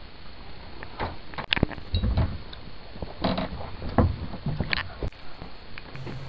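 Scattered thumps and rustles as a person climbs out of a bunk bed and walks in sneakers across a carpeted floor.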